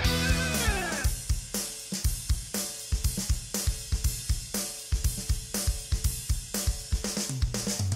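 Rock backing music. A pitched note slides down over about the first second, then the drum kit carries a steady beat with kick, snare and cymbals.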